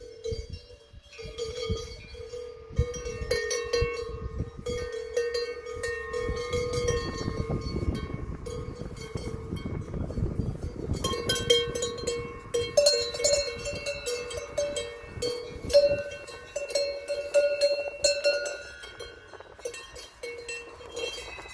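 Cowbells worn by grazing cattle clanking irregularly as the cows move, each clank ringing on. There are at least two bells of different pitch, with a higher one coming to the fore about halfway through, and a low rumble of noise lies under the bells for the first half.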